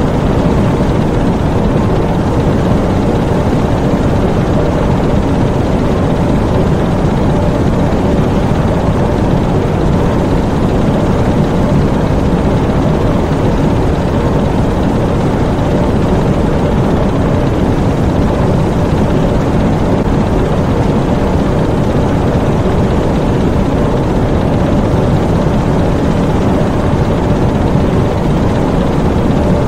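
Diesel engines of a U-boat running steadily, heard inside the engine room: a loud, dense, unchanging mechanical drone.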